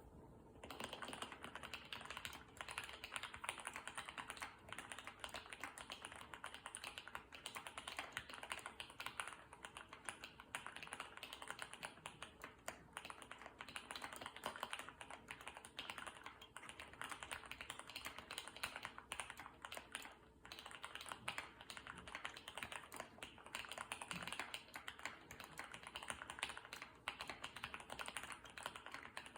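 Continuous fast typing on an Orion V3 custom mechanical keyboard with Gateron Ink Black V2 linear switches lubed with Krytox 205g0, an FR4 plate and Leopold keycaps: a dense run of key clacks that starts just under a second in.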